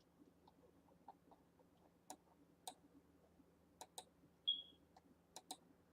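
Near silence with about six faint, sharp clicks, typical of a computer mouse, and one short, high-pitched chirp about four and a half seconds in.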